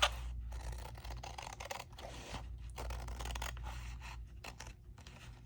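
Scissors cutting through paper, several strokes with short pauses between them.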